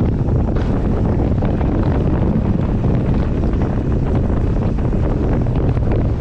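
Steady, loud wind buffeting the microphone as a downhill mountain bike runs fast down a dirt trail, with tyre rumble and small clicks and rattles from the bike over the ground.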